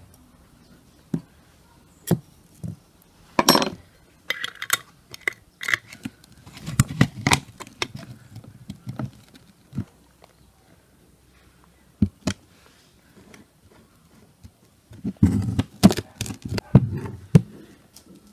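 Clinks and knocks of a glass jar being handled: a spoon and a small plastic bottle are set down, a screw lid is put on the jar, and the jar is turned over and set down on the table. The sharp knocks are scattered, with two busier stretches, one near the middle and one near the end.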